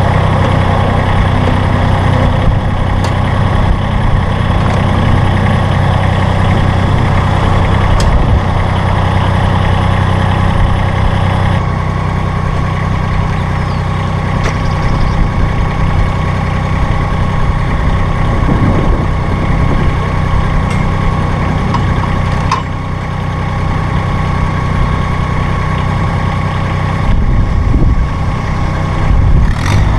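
Massey Ferguson GC-series sub-compact tractor's three-cylinder diesel engine running steadily. Its note changes about 12 seconds in, and again near the end.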